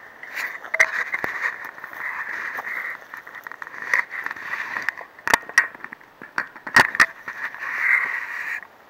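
Crackling and scraping of shrub branches and stony ground as someone walks and pushes through dense bushes beside a wire fence, with sharp snaps, the loudest a little after halfway. A steady high buzz runs underneath.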